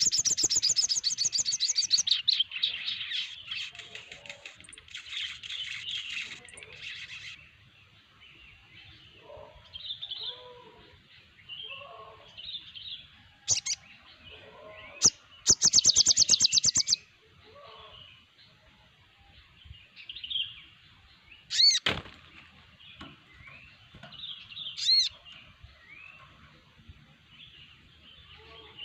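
A mixed chorus of sogon birds singing: scattered high chirps and whistles, broken twice by loud, fast trills of rapidly repeated notes at the start and about halfway through, and a few sharp sweeping calls near the end.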